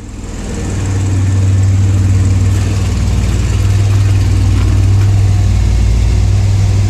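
DeLorean DMC-12's V6 engine idling steadily through an aftermarket DPI exhaust, a low even drone that grows louder over the first second or so and then holds.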